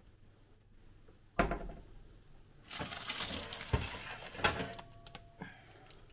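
Metal baking trays clanking and knocking as a hot oven is opened and the bread is taken out: a sharp knock, then a rushing hiss for about two seconds with a couple more clanks.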